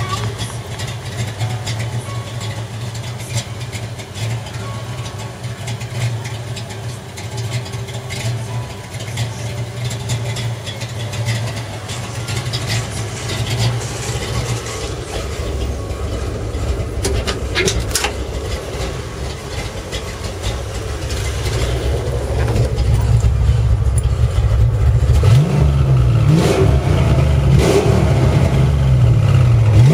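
Ford Mustang 5.0 V8 running at a steady idle, then revved several times near the end, the pitch rising and falling and the sound getting louder.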